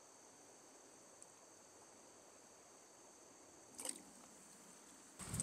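Faint, steady high-pitched chirring of crickets. A brief scrape about four seconds in, and a louder rush of noise starting just before the end.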